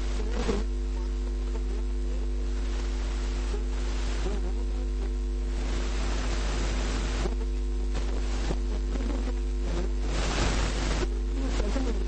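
Steady electrical mains hum with a buzzy overtone and background hiss on the recording, the hiss swelling briefly near the end.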